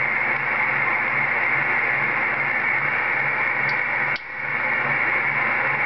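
CB radio receiver hissing static between transmissions, a steady rushing noise from the speaker. It drops out for a moment with a click about four seconds in, then comes back.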